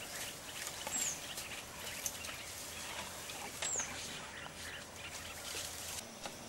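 Wild birds calling: two short, high whistled notes that slide down, about a second in and again near four seconds, over faint crackling.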